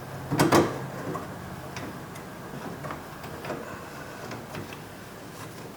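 Clicks and a short clatter as a car's inside door handle is twisted and worked off its linkage rods inside the door, loudest about half a second in, followed by scattered light ticks.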